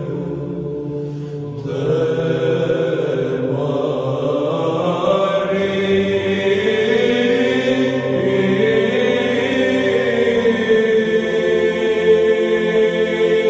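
Romanian Orthodox Byzantine (psaltic) chant: voices singing a slow hymn to the Mother of God, with long held notes over a steady low drone. The singing swells louder about two seconds in.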